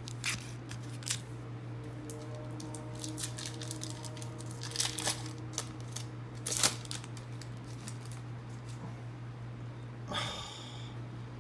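Trading cards and a foil pack wrapper being handled: scattered light clicks and rustles, with a brief rustle near the end, over a steady low hum.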